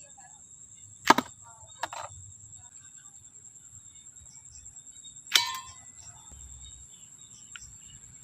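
Bow firing arrows: three sharp snaps, about a second in, near two seconds and just after five seconds, the last one with a short ringing tail. A faint steady high whine runs underneath.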